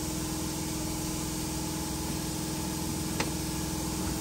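Steady mechanical hum with a low drone, unchanging throughout, and a single sharp click about three seconds in.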